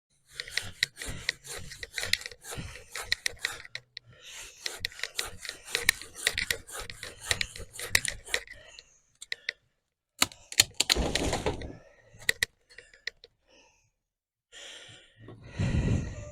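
Hand saw cutting through laurel wood in quick back-and-forth strokes for about nine seconds. It stops, and a loud rustling crash follows about ten seconds in, with another loud thump near the end.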